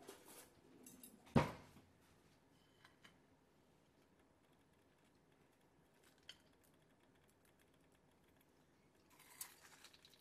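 A few light taps and clicks against near silence, with one sharper knock about a second and a half in and a short cluster of clicks near the end.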